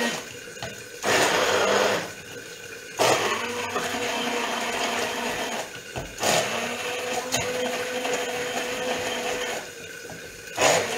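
Electric blender run in several bursts with short pauses between, puréeing cooked artichokes with parsley and mint into a cream.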